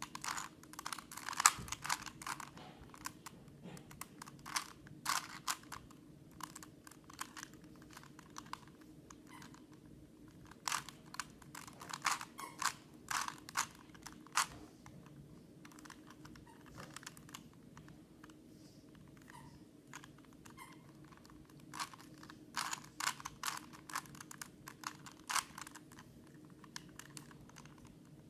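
Plastic Rubik's Cube being twisted by hand through a solving algorithm: quick runs of clicking and clacking as the layers turn, in several bursts with short pauses between.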